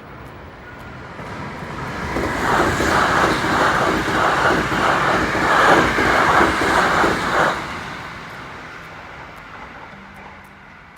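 An electric train passes close by. Its noise builds, stays loud for about five seconds with a steady clatter of about two strokes a second from the wheels over the rail joints, then fades away.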